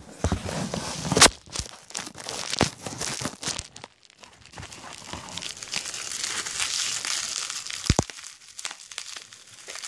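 Plastic packaging and bubble wrap crinkling and rustling as a wrapped bottle is handled and unwrapped, with a sharp click about a second in and another near the end.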